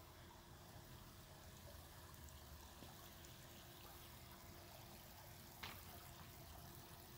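Near silence: faint outdoor room tone, with one soft click about five and a half seconds in.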